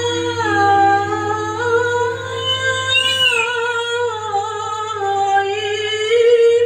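A girl singing a long, drawn-out hadroh vocal line into a microphone through a PA system. The notes are held and slide slowly up and down, with no drums, over a steady low hum.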